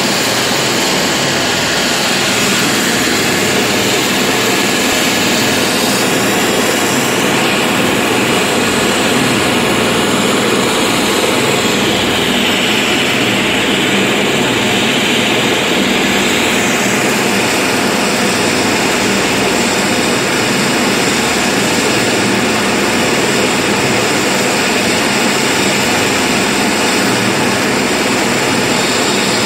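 Helicopter's turbine engine and rotor running, a loud steady noise. Its high whine steps up in pitch about six seconds in and drops back around seventeen seconds.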